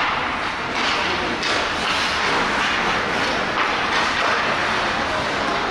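Ice hockey skates scraping and hissing across the ice in repeated short bursts during play, over a steady rink din.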